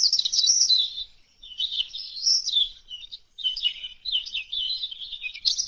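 Songbird chirping and twittering in quick, high warbling phrases, with brief pauses about a second in and about three seconds in.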